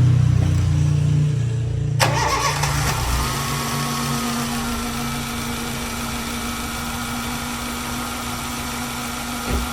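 Honda Fit's four-cylinder engine starting, with a sudden onset about two seconds in, then settling into a steady idle. The accessory belt runs without its squeal, freshly re-tensioned.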